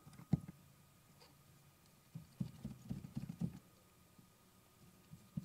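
Faint, irregular light clicks and taps of fingers working a ring on the front of a camera lens barrel. There are a few near the start and a denser run around the middle, with quiet gaps between.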